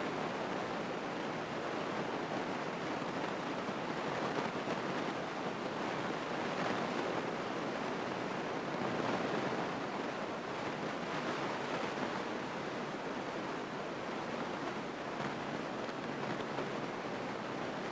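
Steady rushing cabin noise of a Grumman single-engine light aircraft during the landing: engine and airflow blend into an even hiss with no distinct engine note.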